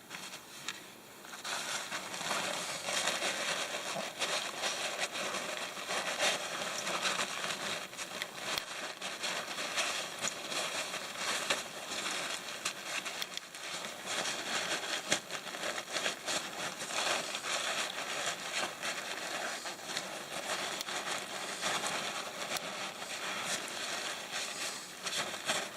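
Gloved hands wiping down an oil burner's nozzle and electrode assembly with a rag: continuous rustling and crinkling with many small clicks of handling.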